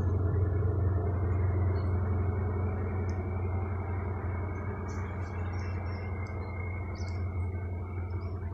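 Diesel engine of a GWR High Speed Train's rear Class 43 power car running as the train pulls away. It makes a steady low drone with a thin high whine over it, fading slowly as the train recedes. Birds chirp in the second half.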